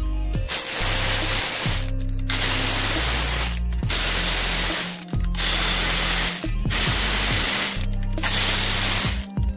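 Electronic background music with a deep bass line and loud bursts of hiss, one about every second and a quarter, each cut off sharply.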